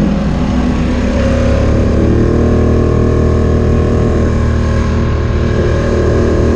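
Polaris ATV engine running steadily while cruising down a road, heard from the rider's seat, its pitch rising a little about two seconds in.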